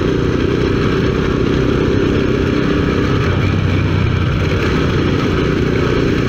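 Motorcycle engine running steadily at a cruise while riding.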